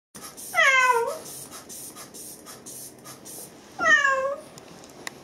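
A cat meows twice, about three seconds apart. Each is a loud, drawn-out cry that falls in pitch, given while it is held wrapped in a towel for treatment.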